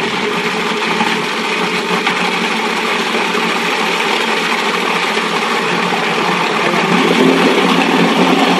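Food processor switched on and running steadily, its motor and blade chopping a raw chicken liver pâté mixture, a little louder near the end.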